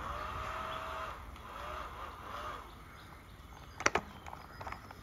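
Battery-powered 32-hole Gatling bubble gun's small motor and fan whirring steadily, then cutting off about a second in. A couple of sharp clicks follow near four seconds in.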